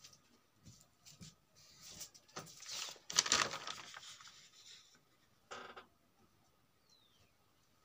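Paper rustling as a page of a handwritten notebook is turned, building about two seconds in and loudest around the middle. A short second noise follows a couple of seconds later.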